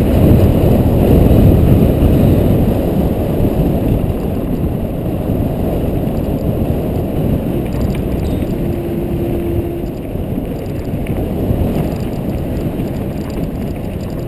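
Wind buffeting the microphone of a camera on a mountain bike riding down a dirt trail, mixed with the rumble of tyres on dirt and gravel. It starts abruptly and is loudest in the first few seconds.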